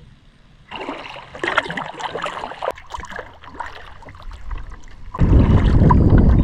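Kayak paddle strokes with water splashing and dripping. About five seconds in, a loud low rumble of wind buffeting the microphone takes over.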